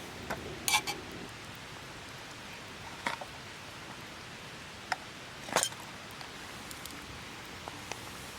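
Steady hiss with a handful of scattered sharp clicks and knocks, the loudest near the start with a short ringing clink.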